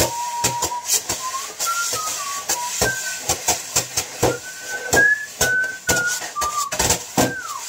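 A man whistling a tune while drumming a rhythm with a kitchen knife and a metal spatula on a cardboard box, the taps sharp and frequent under the melody.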